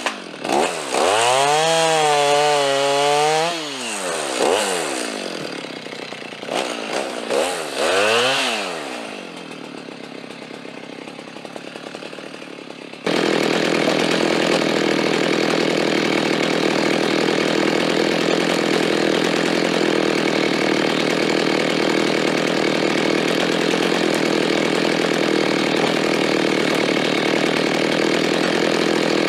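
Chainsaw engine revved up and held for a few seconds, then revved briefly again. After an abrupt change it runs steadily at full throttle, as when cutting wood.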